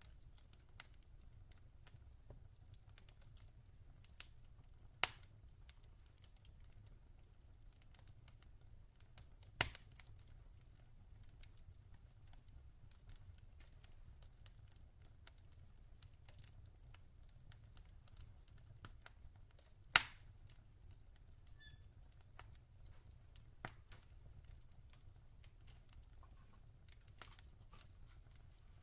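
Log fire crackling softly: a steady scatter of small snaps and ticks with a few sharper pops, the loudest about twenty seconds in, over a faint low rumble.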